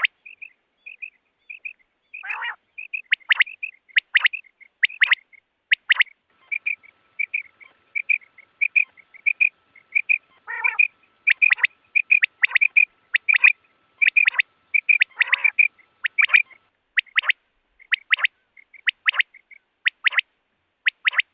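Quail calling: a steady run of short, sharp notes, many in quick pairs, with softer notes between them.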